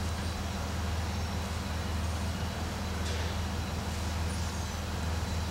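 Steady low hum with an even hiss over it: constant kitchen background noise from running machinery, with one faint click about three seconds in.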